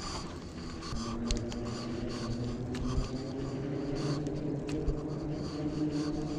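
An engine running steadily: a low hum of several tones that shifts slightly in pitch, with a few light clicks over it.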